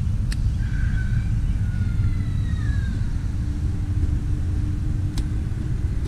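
Steady low rumble of wind buffeting the microphone, with a few faint falling whistles early on and two sharp clicks, one near the start and one near the end.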